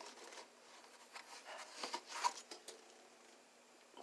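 Faint rustling and soft scrapes of hands rummaging among hand tools, with a few small scuffs and taps between about one and three seconds in.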